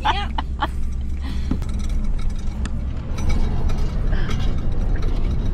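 Vehicle driving slowly over a rough, muddy dirt track, heard from inside the cab: a steady low rumble with frequent rattles and clicks from the cabin as it bounces.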